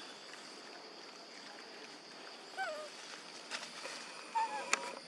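Young long-tailed macaques giving short pitched squeaking calls, one about halfway through and another near the end, with a few sharp clicks, over a steady high outdoor hum.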